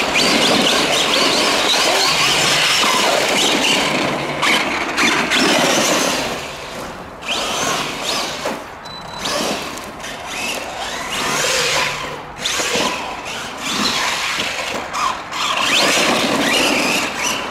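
Electric RC monster truck being driven hard on dirt: the motor's high whine rises and falls with the throttle over tyre and dirt noise. It is continuous for the first six seconds or so, then comes in shorter surges with lulls between.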